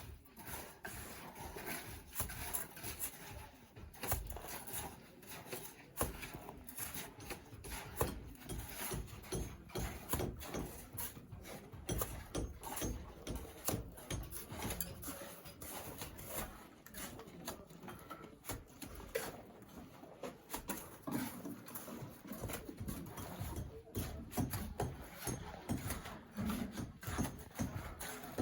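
Bricklaying work: irregular scrapes and knocks of a trowel working mortar and setting bricks.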